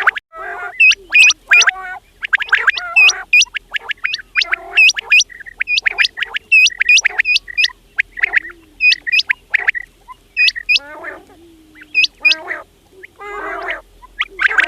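Quails calling: quick runs of harsh, chattering calls with sharp, high chirps repeated over them, coming in bursts with brief pauses.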